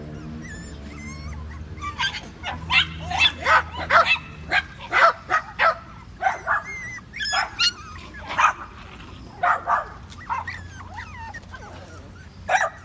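Five-week-old Patterdale terrier puppies yipping and barking in a rapid string of short, high yelps, starting about two seconds in.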